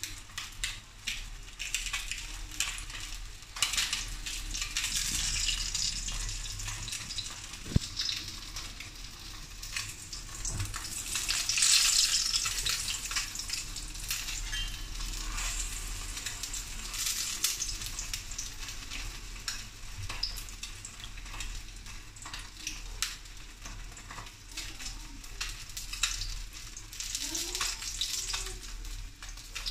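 Threadfin fish fillet sizzling in hot oil in a wok as it pan-fries, a steady crackling hiss with frequent small pops. The sizzle swells louder for a couple of seconds about midway.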